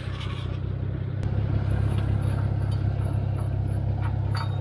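Lexus SUV's engine idling steadily, a low drone that gets louder about a second in. A short metallic clink near the end as the winch line is unhooked from the steel front bumper.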